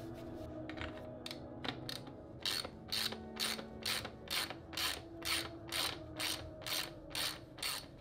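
Ratchet wrench on a bottom bracket tool, turning a threaded bottom bracket cup into a carbon road bike frame: the pawl clicks in short bursts on each back-swing, a few scattered ones at first, then a steady run of about two bursts a second.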